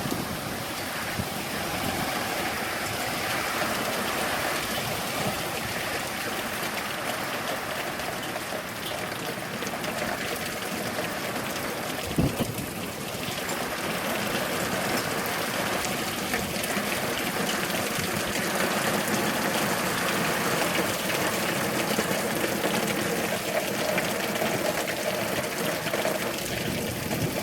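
Heavy rain pouring down steadily in a dense, even hiss, with one sharp knock about twelve seconds in.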